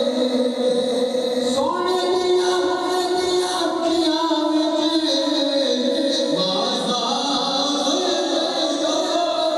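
Devotional na'at singing with long, held vocal notes that slide from one pitch to the next, with no clear words.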